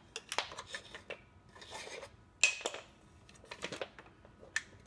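A stretch cord being taken off a folded aluminum hand truck, the cord and frame clicking and clinking as they are handled: a string of light clicks and rattles, with one sharp metallic clink that rings briefly about two and a half seconds in.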